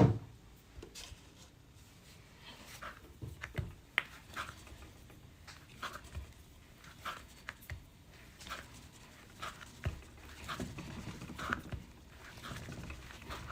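Scattered light knocks, clicks and rustles of someone handling things and moving about, with soft breathy noise between them.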